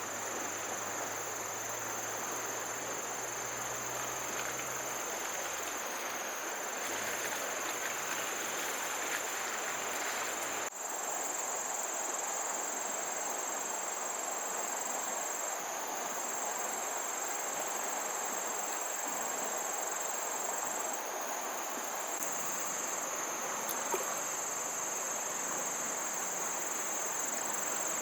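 Insects trilling in a steady high-pitched drone over a constant hiss, with a brief break about ten seconds in.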